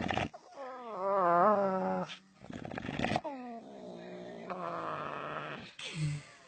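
A bulldog making strange drawn-out vocal moans: first a warbling one that wavers up and down in pitch, then a shorter falling one, then a longer, lower one. Short snorting breaths come between them.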